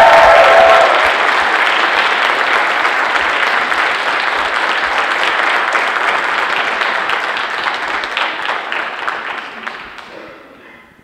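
Audience applauding, loudest in the first second, holding steady, then dying away over the last couple of seconds.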